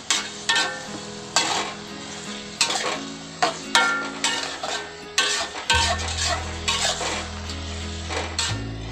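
Metal spatula stirring in a thin aluminium wok, with repeated scrapes and clanks about once a second, over faint background music.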